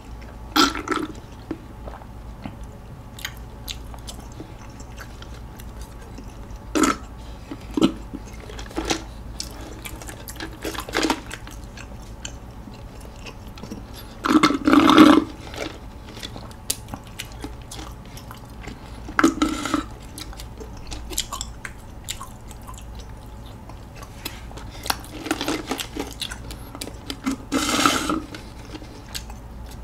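Close-up sipping of bubble milk tea through a wide straw: short slurps as tapioca pearls are drawn up, with chewing between. They come every few seconds, the loudest about halfway through and near the end.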